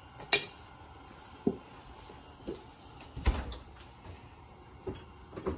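Kitchenware being handled: about half a dozen separate knocks and clinks, the sharpest a moment after the start and another strong one about three seconds in, as a metal mesh strainer is set onto a glass carafe.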